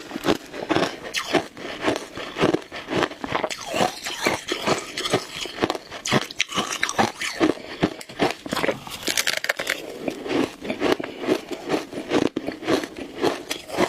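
Shaved ice being bitten and chewed close to the microphone: a quick, irregular run of crunches, several a second.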